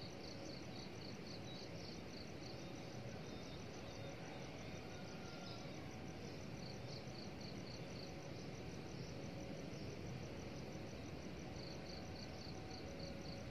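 Crickets chirping in short runs of rapid, evenly spaced pulses, about four a second. The runs come near the start, about halfway and near the end, over a faint steady low rumble of outdoor background noise.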